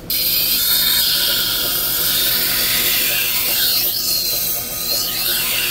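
Kitchen knife edge ground against a wet, spinning 100-grit resin-bond diamond wheel on a Tradesman Edge grinder: a loud, steady hiss of steel on diamond that starts abruptly as the blade meets the wheel. The tone wavers briefly about four seconds in. This is a pass on the coarse wheel to raise a burr.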